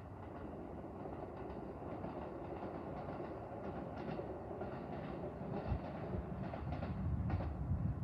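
Electric train running on rails, growing steadily louder, with scattered clicks of the wheels over the track.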